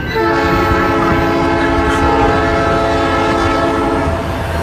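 Train air horn sounding one long blast of several notes together, cutting off abruptly about four seconds in, over a steady low rumble of the train.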